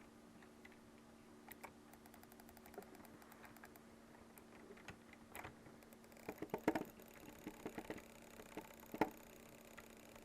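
A series of small, sharp clicks at irregular spacing, sparse at first, then a quick cluster about six to seven seconds in and one louder click about nine seconds in, over a steady low hum.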